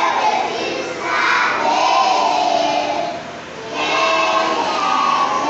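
A group of young children singing a song together in unison, in three phrases with short breaks between them.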